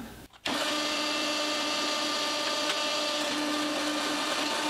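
Homemade hydraulic forging press's pump and motor running with a steady whine as the ram travels down under the control lever, starting abruptly about half a second in.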